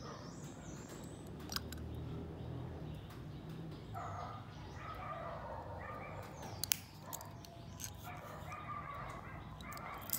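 Faint animal calls in the background, several roughly one-second calls about halfway through and again near the end, over a low steady hum, with two sharp clicks.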